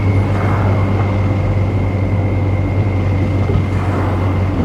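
BMW M235i's turbocharged N55 straight-six running at a steady cruise, heard from inside the cabin as an even low drone with tyre and road noise and a faint steady high whine.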